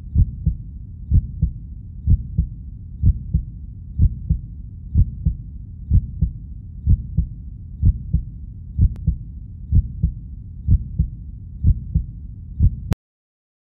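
Heartbeat sound effect: pairs of low thuds, lub-dub, about once a second, which stop suddenly near the end.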